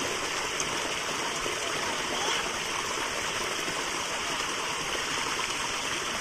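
Water flowing steadily along a concrete irrigation channel, an even running-water sound with no breaks.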